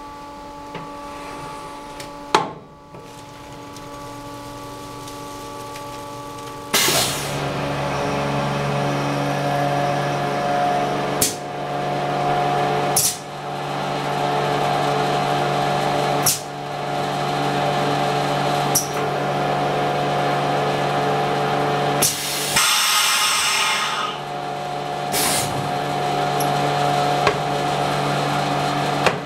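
RPC Bebo 511 skin-pack tray sealer running a packing cycle: a low hum gives way about a quarter of the way in to its motor, which runs steadily and loudly to the end. Sharp clicks come every few seconds, and a hiss lasting about two seconds comes about three quarters of the way through.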